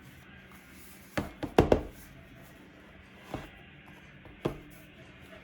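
Laptop being handled on a hard surface: a quick cluster of knocks and clicks just over a second in, then two single knocks about a second apart.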